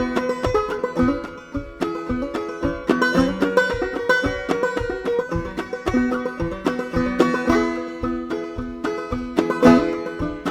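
Five-string banjo played clawhammer style, an instrumental break of plucked, ringing notes in a steady rhythm.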